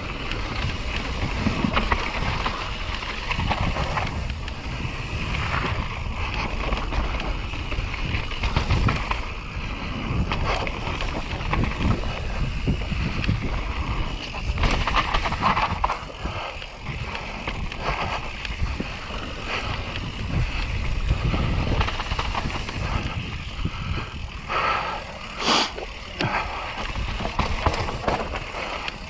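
YT Capra enduro mountain bike running fast down a dirt trail: the tyres rumble over the ground, and the bike knocks and rattles unevenly over bumps and roots. A short high squeal sounds near the end.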